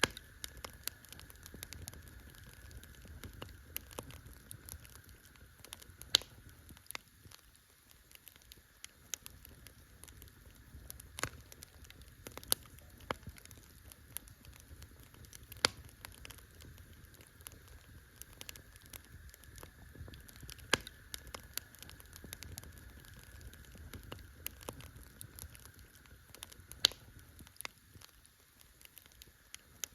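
Wood campfire burning: a constant soft crackle of small clicks and ticks, with about half a dozen sharper, louder pops spread through it.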